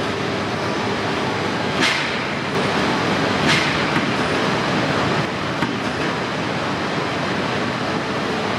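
Coupled Tsubasa and Yamabiko Shinkansen trainsets standing at the platform, with a steady mechanical running noise. Two short, sharp hisses come about two seconds apart.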